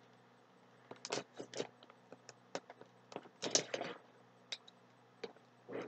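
Cardboard subscription box being opened by hand: a string of short, irregular scratches and scrapes of cardboard and tape, starting about a second in.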